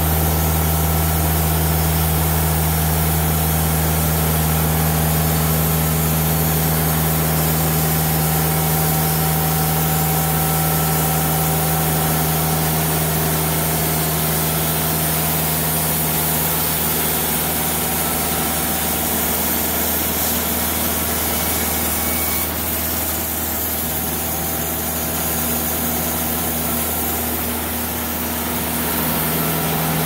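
TimberKing 2000 band sawmill running steadily as its band blade saws a board off a cypress cant, the engine hum under the cutting noise. The sound dips a little about two-thirds of the way through and comes back up near the end.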